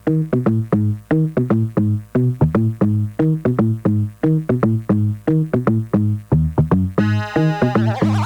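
Dugem-style electronic dance remix played loud on an arranger keyboard: a quick run of short, repeated synth bass notes over a drum-machine beat. About seven seconds in, a brighter synth layer comes in on top.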